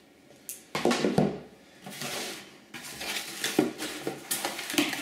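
Cardboard packaging being handled: irregular scraping and rustling of a cardboard box and insert, with a few sharp knocks and clicks, starting a little under a second in.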